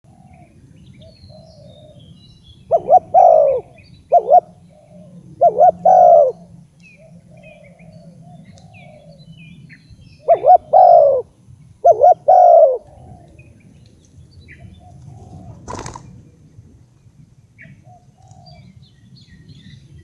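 Spotted dove cooing: two loud rounds of its coo phrase, each a few falling notes, a few seconds in and again about ten seconds in, with fainter coos between. A single sharp click comes near the end.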